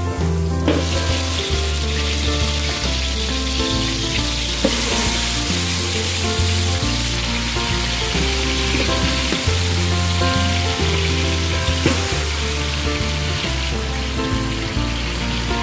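Garlic and then pieces of meat sizzling in hot oil in a metal pot, the sizzle growing louder about five seconds in. Background music with a steady bass line plays throughout.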